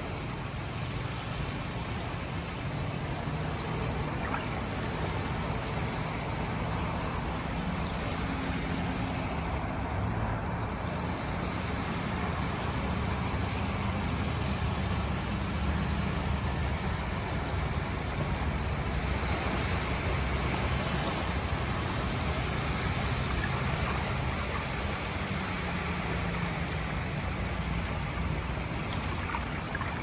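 Gentle sea surf washing in over a flat sandy beach at the water's edge: a steady hiss of small breaking waves and foam.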